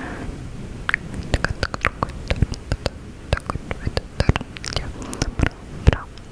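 Close-miked mouth sounds: irregular wet clicks and smacks, several a second, with soft unintelligible whispering.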